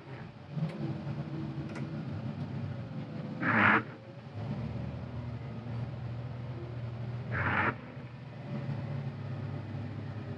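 CAT 950GC wheel loader's diesel engine running steadily while plowing, with a short swish about every four seconds.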